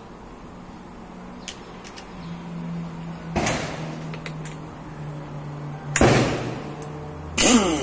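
Hand work on a motorcycle clutch: a few small metal clicks and two louder scraping rustles, about three and six seconds in, as parts and tools are handled on the clutch shaft. Near the end a loud sound with a pitch that sweeps up and down starts.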